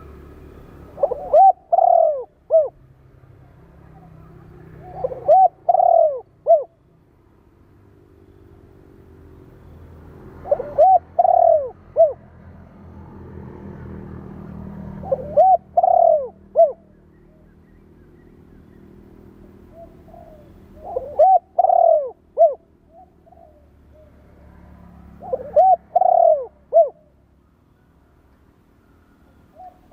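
Spotted dove (chim cu gáy) cooing: six short phrases of several coos each, coming about every four to five seconds, over a faint low rumble.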